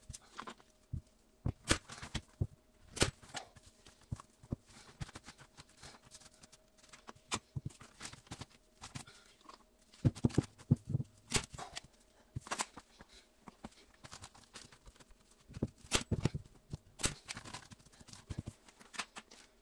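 Thin plastic vapour-barrier sheeting crinkling and rustling as it is handled and pressed into place, with a dozen or so sharp, irregular snaps and clicks scattered through. A faint steady hum sits underneath.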